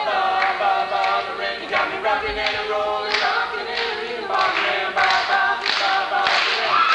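A group of young male voices singing together in harmony, a cappella.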